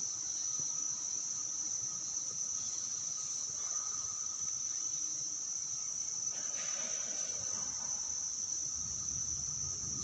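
Steady, high-pitched chorus of insects, an unbroken shrill drone.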